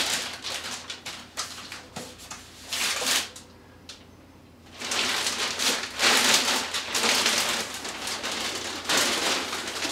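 Clear plastic wrap crinkling and rustling in uneven bursts as it is pulled off a foam model airliner's fuselage, with a short pause about three seconds in.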